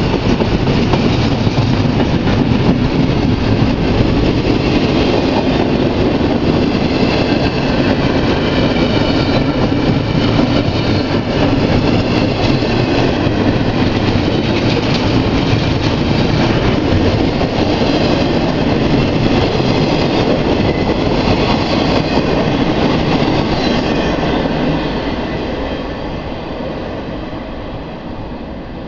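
Double-stack container freight train rolling past: a steady loud rumble and rattle of the well cars' wheels on the rails. It fades away over the last few seconds as the end of the train passes.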